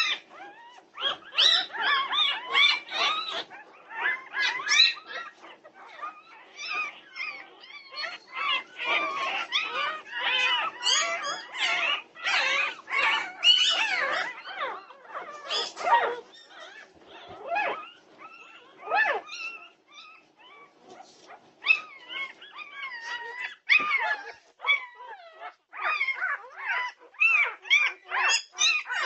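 A litter of Norwegian Buhund puppies squealing and whining over one another in a high-pitched, nearly continuous chorus, with a couple of short lulls.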